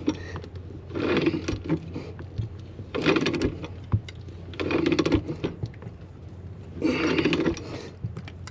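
Pipe wrench turning a threaded steel gas-pipe fitting tight: four scraping strokes of metal on metal, each about half a second long, coming every one and a half to two seconds.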